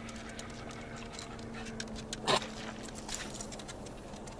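Small handling noises aboard a skiff: one sharp click about two seconds in, then a few lighter ticks, over a faint steady hum.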